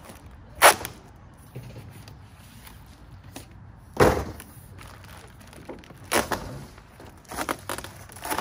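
Flat cardboard boxes being handled and unpacked on a ute's tray: sharp knocks about a second in and again halfway, then smaller knocks and rustling of the packaging.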